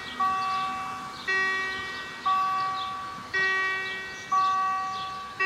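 Railway level-crossing warning bell striking about once a second, alternating between a lower and a higher tone, each strike ringing out before the next. It signals that the crossing is closing for an approaching train.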